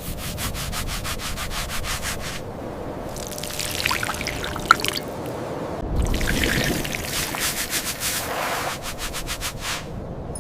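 Brush scrubbing a hard object: two runs of rapid, even back-and-forth strokes, with irregular rubbing and scraping between them.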